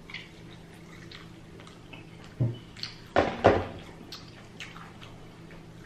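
Wet eating sounds of rotisserie chicken being torn by hand and chewed, with a few short, louder smacks about two and a half and three and a half seconds in.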